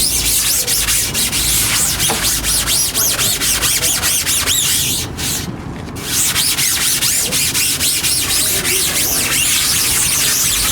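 Sponge scrubbing haze remover into a silk-screen's mesh: a rhythmic rubbing of quick back-and-forth strokes, pausing briefly about five seconds in.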